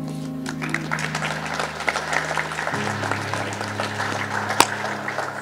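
Guests applauding over soft background music of slow held chords, with one sharp knock near the end.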